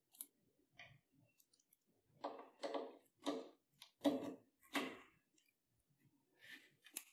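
Nylon cable ties being pulled tight around power cords: faint clicks, then about five short rasping strokes in quick succession, and a couple of fainter ones near the end.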